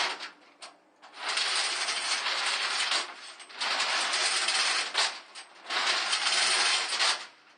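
Steel load-restraint chain rattling and clinking as it is pulled link by link through a truck's dropper, in three long pulls with short pauses between.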